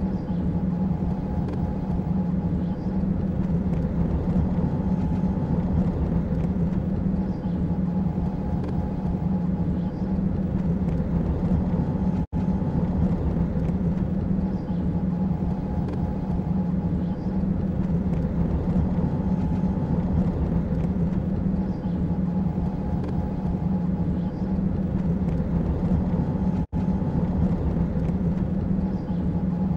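Steady low engine hum of a vehicle sound effect, with a faint whine above it that repeats in a pattern every few seconds. The sound drops out for an instant twice.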